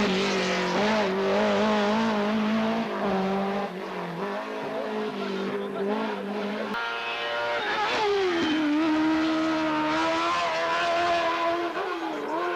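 Racing car engine at high revs on a hillclimb run, its pitch moving up and down with throttle and gear changes; the note changes abruptly about seven seconds in and drops sharply a second later before climbing again.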